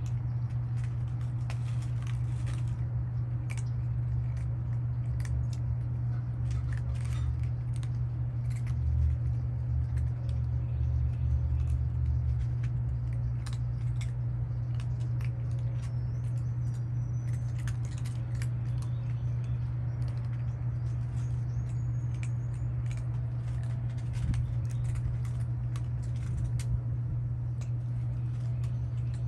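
Cats chewing wet food from plates: many small, irregular clicks and smacks over a steady low hum.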